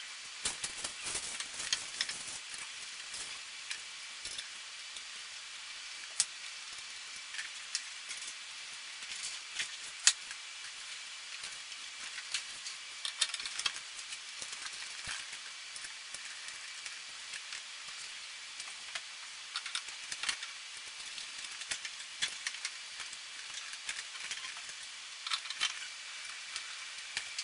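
Handling noise from assembling a chandelier: scattered small clicks, taps and rustles as its wires and metal arms are worked by hand, over a steady faint hiss. The sharpest clicks come about 6 and 10 seconds in.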